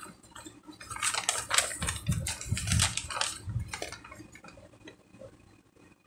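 Small plastic baggies of resin diamond-painting drills being handled, the drills rattling and the plastic crinkling, with a few soft low thumps in the middle; the handling goes quieter near the end.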